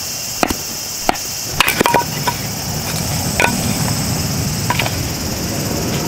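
A wooden baton knocking on the spine of a fixed-blade knife to split a stick of firewood for kindling: about seven sharp knocks at irregular intervals, two of them close together about two seconds in. A steady high hiss runs underneath.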